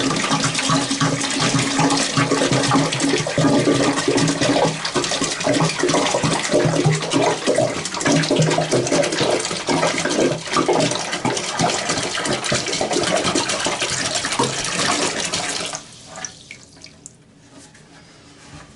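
Warm water poured from a container into a toilet tank, splashing and churning to stir citric acid powder into solution. The pour stops abruptly near the end.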